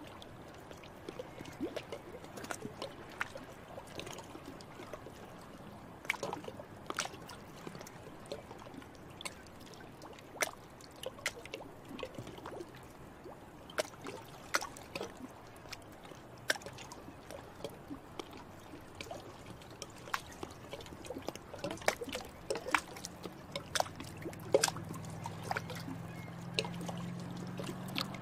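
Water plopping and dripping at irregular intervals over a faint steady trickle. A low steady hum joins near the end.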